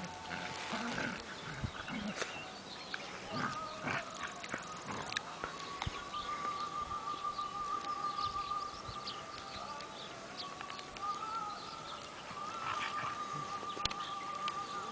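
Two dogs play-fighting: scuffles, snuffles and short mouthy noises as they grapple. A thin, slightly wavering high tone runs steadily from a few seconds in.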